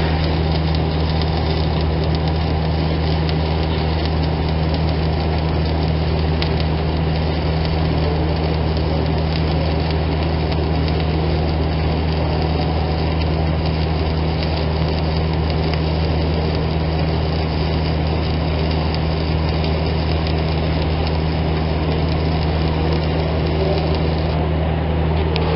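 Stick welding arc crackling steadily as a bead is run with a coated electrode on steel, over a steady low hum.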